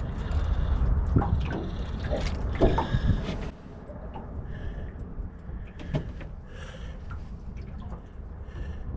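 Water lapping and sloshing against a small boat's hull, with wind rumbling on the microphone for the first three seconds or so and a few sharp knocks and clicks as the fish is handled.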